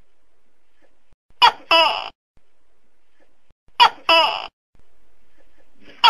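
Tokay gecko calling "to-kek" twice, about two and a half seconds apart. Each call is a short sharp first note followed by a longer, falling second note, and a third call begins at the very end, over a faint steady hiss.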